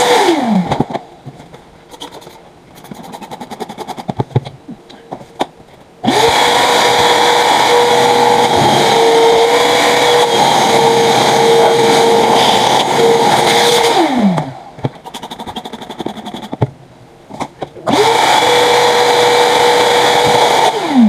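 A small electric motor running in three separate runs, each with a steady whine. The first is winding down at the start, the second runs about eight seconds from around six seconds in, and the third runs a few seconds near the end. Each run spins up quickly and falls in pitch as it winds down. Scattered clicks and handling noise fill the quieter gaps.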